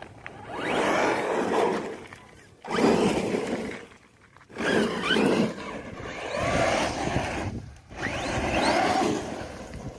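Electric RC car driven hard over dirt in five bursts of throttle, each about a second long: a rising motor whine with tyres scrabbling and throwing up dirt, and short quiet gaps between runs.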